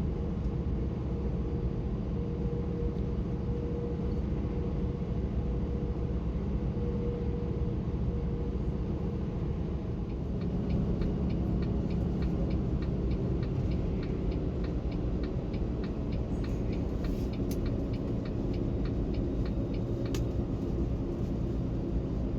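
Dump truck on the road, heard from the cab: a steady low rumble of the diesel engine and tyres. For several seconds midway a fast, regular ticking sits on top of it.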